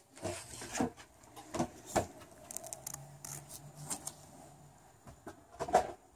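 A skateboard pushed off and rolling away across concrete: a run of separate clicks and knocks, the sharpest one near the end.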